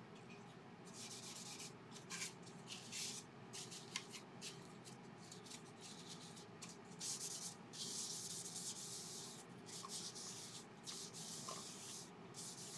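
Danish oil being rubbed by hand onto a turned laburnum bowl: irregular strokes of soft hiss, some short, one longer about eight seconds in.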